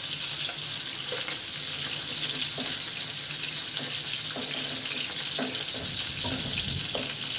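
Taki fish (spotted snakehead) frying in hot mustard oil in a pan, a steady sizzle throughout, with a few soft knocks of a wooden spatula moving the fish.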